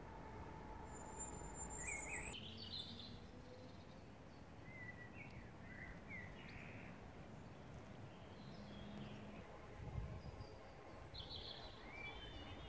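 Faint outdoor background with small birds chirping and whistling now and then, and a soft low bump about ten seconds in.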